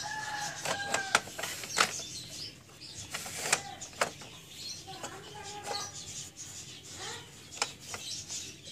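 Sharp plastic and metal clicks and knocks from an Epson T60 inkjet printer's carriage and CR shaft being handled and fitted back into the frame. A few brief high tones sound between them, about a second in and again around the middle.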